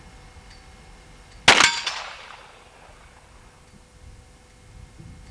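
A single .38 revolver shot about one and a half seconds in, with a short metallic ring after it that dies away within half a second.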